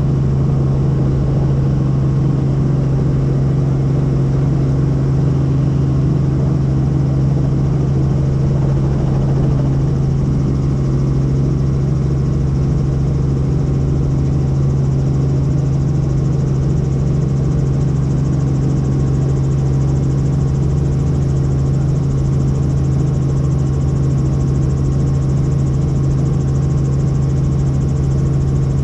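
Helicopter in flight: a steady engine and rotor drone, dominated by one strong low hum with many overtones, unchanging throughout.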